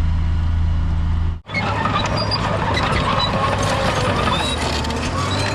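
Heavy diesel construction machine running: a steady low engine hum, then after a sudden break about a second and a half in, a busier, clattering machine sound with scattered high squeaks over the same low drone.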